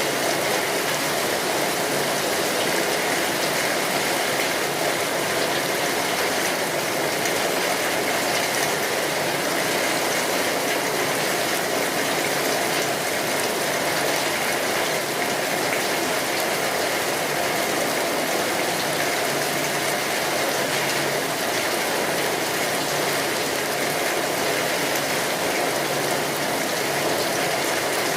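Rain falling steadily on a tin roof: a dense, even patter that holds the same level throughout.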